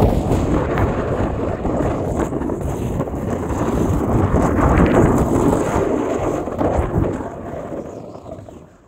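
Wind buffeting an action camera's microphone during a fast ski descent, mixed with the rush and scrape of skis or a snowboard on packed snow. It is loud and rough for most of the stretch, then dies away near the end as the camera-holder slows.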